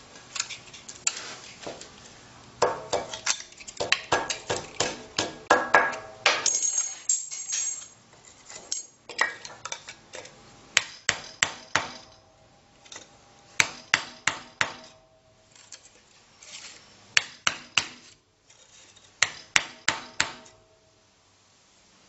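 Hammer knocking a wooden block held against the heavy secondary cable wound on a microwave oven transformer's core, to flatten and square up the cable. The knocks are sharp and come in quick runs of several, with short pauses between runs.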